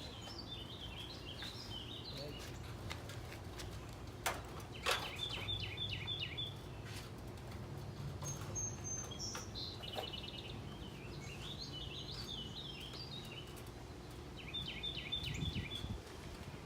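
A songbird singing the same short, chirpy phrase again and again, about every five seconds, over a low steady hum. A couple of sharp clicks come about four to five seconds in.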